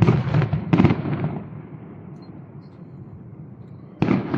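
Aerial fireworks shells bursting: a rapid run of sharp bangs with a loud one just under a second in, fading into a long echo, then another sudden bang near the end.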